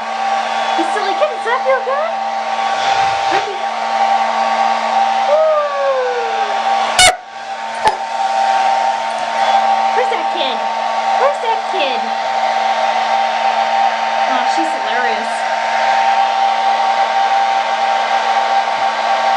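A handheld hair dryer runs continuously with a steady whine, briefly dropping out at a knock about seven seconds in before it runs on. Over it a dog whines and whimpers in short cries that slide up and down in pitch.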